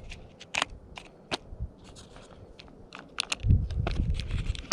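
Small plastic tackle box and lures handled, with scattered light clicks and rattles. A low rumble on the microphone starts a little past the middle and is the loudest sound.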